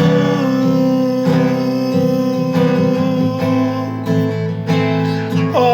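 Instrumental passage of a worship song: acoustic guitar strumming under steady held notes.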